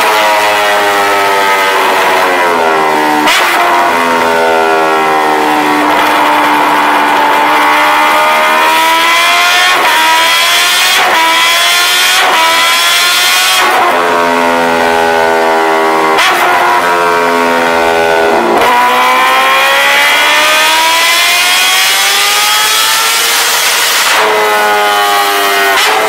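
Kawasaki Ninja H2's supercharged inline-four running hard on a rolling-road dynamometer, its pitch climbing in long sweeps and dropping sharply every few seconds as the revs rise and fall through the gears.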